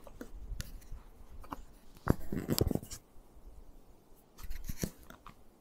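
Close handling noise of hands on a fly rod and fly line right by the camera: scattered scratches, rubs and clicks. A sharp click comes about two seconds in, then a short cluster of scrapes, and a few more near the end.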